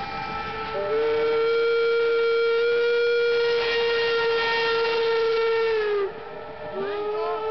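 Steam locomotive whistles blowing, several tones overlapping; the loudest comes in about a second in, holds steady for about five seconds and sags in pitch as it cuts off, and other whistles come in with a wavering pitch near the end.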